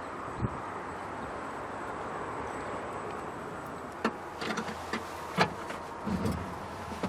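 A car seat's folding and sliding mechanism being worked: one knock near the start, then a run of latch clicks and knocks from about four seconds in, over a steady background hiss.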